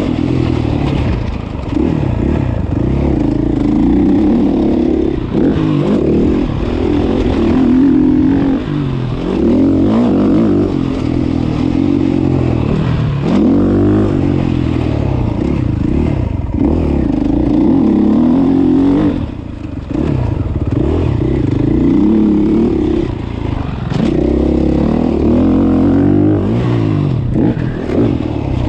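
Motocross bike engine being ridden hard, heard from on board: its pitch repeatedly climbs under throttle and drops back every second or two through gear changes and corners, with a brief lift-off about two-thirds of the way through.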